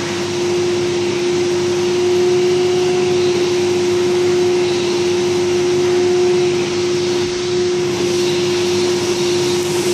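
Carpet extraction machine's vacuum suction running steadily through a hand spot-cleaning tool held on the carpet, rinsing and sucking the spotter and loosened stain out of the fibres: a steady hum with a rushing air noise.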